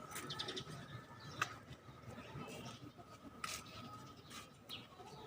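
Faint bird chirps: short, high, twittering calls, with a few sharp clicks scattered through.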